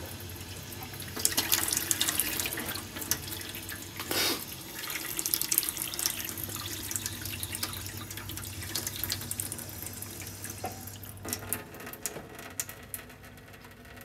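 Water running from a kitchen tap into a stainless steel sink, splashing on the steel around the drain. Near the end the tap is turned down and the flow thins and quietens.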